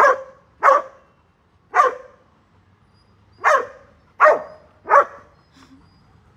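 A dog barking in play: six short, sharp barks with uneven gaps between them.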